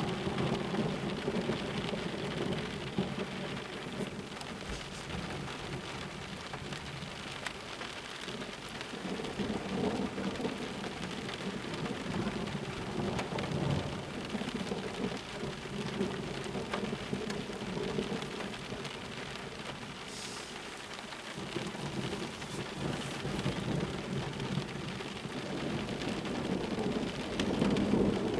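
Thunder rumbling over steady rain. The rumble swells several times: about a second in, around ten seconds in, and again near the end.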